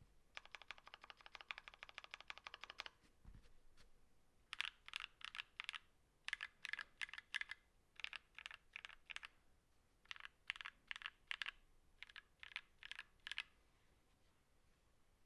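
Mechanical keyboard being typed on: a Tofu60 with a brass plate and Gateron Ink Black v2 linear switches, lubed with Krytox 205g0 and filmed. A fast run of keystrokes for about three seconds, then after a pause, separate groups of a few key presses each, with one last keystroke near the end.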